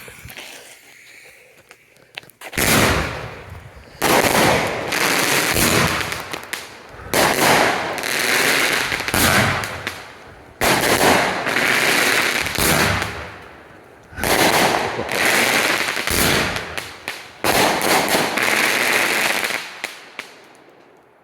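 Consumer firework noisemaker going off: about seven loud hissing, crackling bursts one after another, each lasting a couple of seconds, starting a couple of seconds in.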